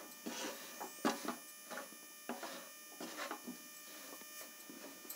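Faint, irregular taps and scrapes of a spoon stirring chopped vegetables in a pan.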